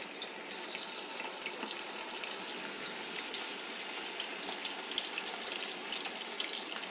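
Batter-coated chicken lollipops deep-frying in hot oil: a steady sizzle with fine crackling throughout.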